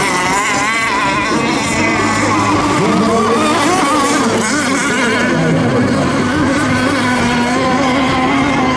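Radio-controlled racing boats running together, several small motors at once with overlapping pitches that waver up and down as they race.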